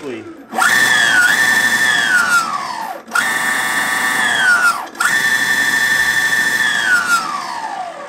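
Electric skateboard's brushless motor driving the freshly mounted MBS 8-inch wheel through its belt, spun up off the ground by remote throttle. It is a whine that jumps up in pitch, holds steady, then slides down as the wheel coasts, three times in a row. This is a test run of the drive after installing the wheel, with the belt running true.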